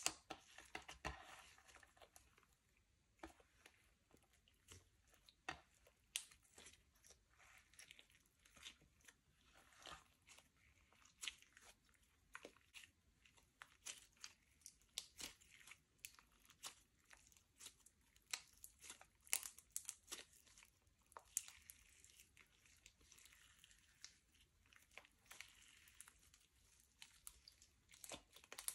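Slime being mixed and worked, giving off faint, irregular sticky pops and crackles.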